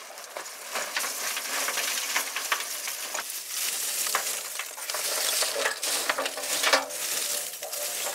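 Lumps of charcoal pouring from a sack into a metal barrel grill and then being raked around by hand: a dense, continuous clatter of small hard pieces knocking against each other and the steel.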